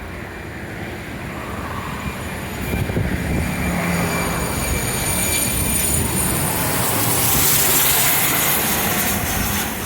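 Small jet airliner passing low overhead on landing approach: a high-pitched turbofan whine and jet engine rush swell, loudest about eight seconds in, then ease off slightly.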